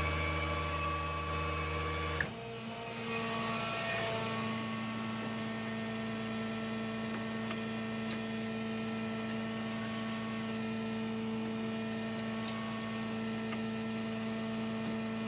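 Winch motor running while spooling cable, then stopping abruptly about two seconds in. A steady mechanical hum carries on underneath.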